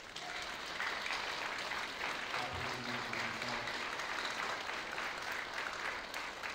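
Congregation applauding: many hands clapping in a dense, even patter that swells up right at the start.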